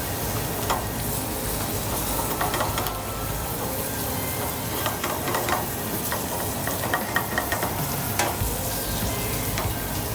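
Thick salmon fillet sizzling in hot oil in a frying pan, a steady hiss, with a few light clinks scattered through it.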